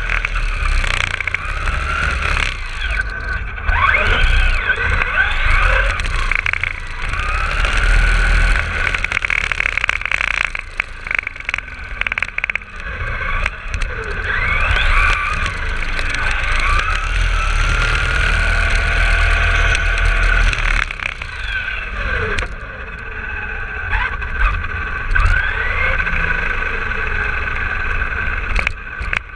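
Traxxas RC car driving on pavement, heard from a camera mounted on the car: its motor whines in gliding tones that rise and fall as it speeds up and slows down, over a steady low rumble of tyres and wind.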